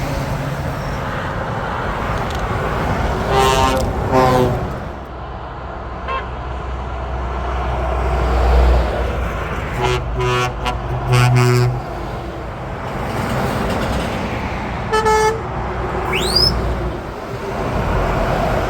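Passing trucks on a motorway sounding their horns: two blasts, then three short blasts, then one more, over the steady rumble of engines and tyres. A short rising whistle follows the last horn.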